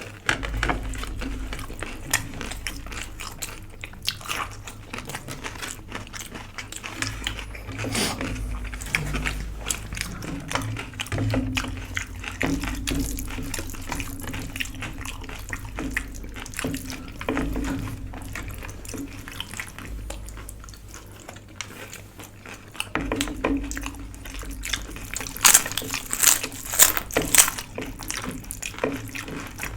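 Close-up eating sounds: irregular wet chewing and mouth sounds of a rice-and-dal meal, with a cluster of sharper clicks or crunches near the end.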